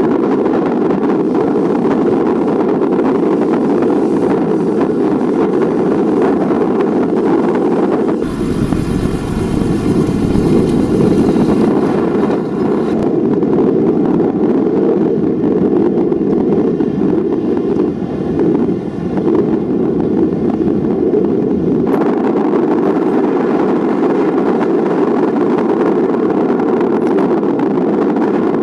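Rolls-Royce Trent 892 turbofans of a taxiing Boeing 777-300 running with a steady jet roar. From about eight seconds in until about twenty-two seconds, a whine of several stacked fan tones and a deeper rumble join in.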